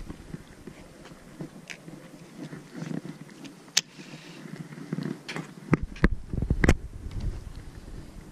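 Hands handling a baitcasting rod and reel, making scattered clicks and rubbing, with the sharpest clicks about four seconds in and again between five and seven seconds.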